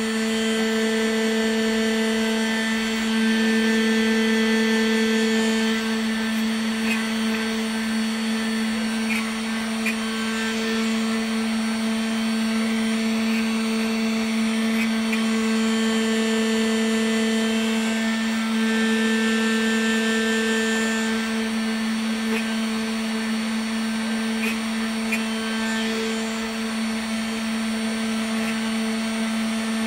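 Homemade CNC machine's spindle motor running at a steady pitch with a constant whine as its bit mills a block of carving wax.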